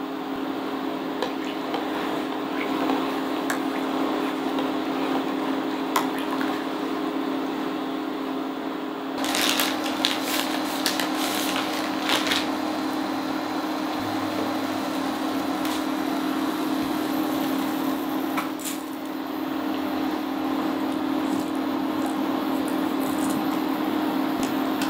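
Steady electrical hum of an induction cooktop heating a pot of water, with an even hiss behind it. From about nine to twelve seconds in, a plastic pasta bag crinkles as it is handled.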